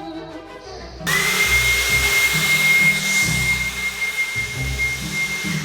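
A motorised air-blowing appliance switches on abruptly about a second in and runs with a loud rushing hiss and a steady high whine, stopping near the end. Background music plays underneath.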